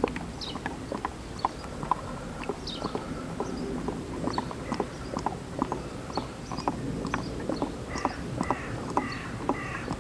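Engine oil glugging out of a large plastic bottle into a paper funnel in the engine's filler neck: a run of irregular pops, a few a second, with several short pitched gulps near the end.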